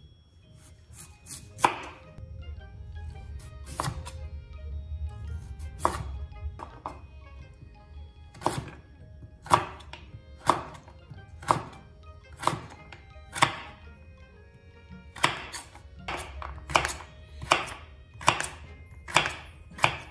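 Chef's knife cutting through raw sweet potato and striking a bamboo cutting board, about one chop a second, coming quicker near the end, as the potato is cut into sticks. Soft background music plays underneath.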